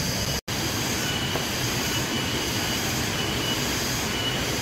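Steady, noisy hiss and rumble from a wood cooking fire with a pot heating on it, with a brief cut-out about half a second in.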